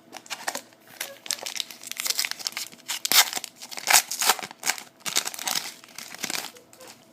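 Foil wrapper of a pack of 2011 Panini Prestige football cards being torn open and crinkled: a run of irregular crackling rustles that dies away near the end.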